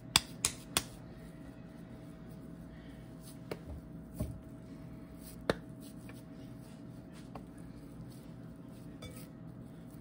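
A few light clicks and clinks of kitchenware being handled on a counter while burger patties are made: three quick ones at the start, then scattered single taps. A steady faint hum runs underneath.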